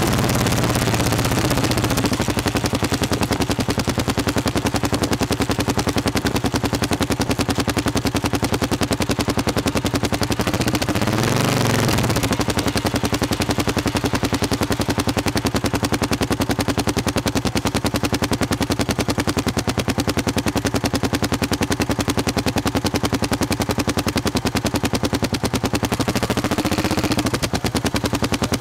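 Single-cylinder CCM motorcycle engine running on the road, its exhaust beats coming rapid and even. The engine note dips and picks up again about eleven seconds in and once more near the end.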